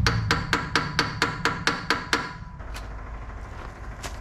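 A quick, even run of about ten sharp metallic taps, four or five a second, that stops after about two seconds.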